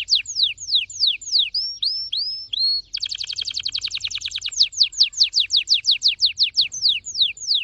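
Red factor canary singing: a quick series of falling whistled notes, a few short rising notes, then a fast buzzing trill about three seconds in, and rapid falling notes again.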